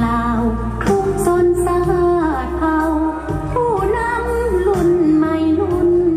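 A woman singing a Lao song into a microphone over instrumental backing music, her voice gliding between notes and holding long ones.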